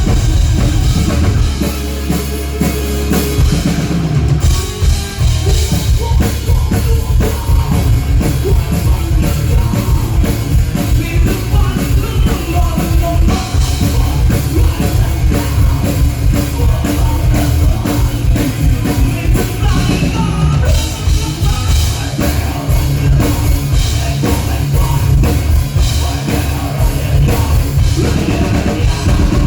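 Rock band playing loud at a sound check, with a full drum kit driving a steady beat and a voice singing at times.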